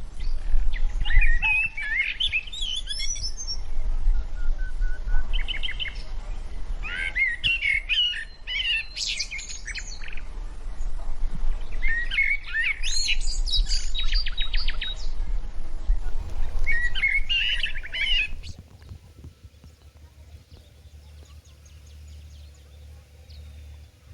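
Songbirds singing in repeated short phrases of chirps and rapid trills over a low steady rumble; the song and rumble stop abruptly about three-quarters of the way in, leaving only faint background.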